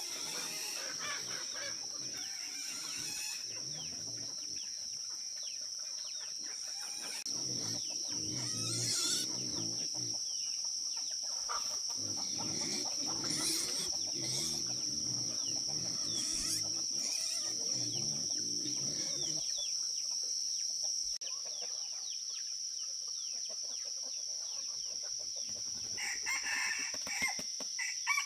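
Domestic chickens clucking, with a rooster crowing near the end, over a steady high-pitched drone.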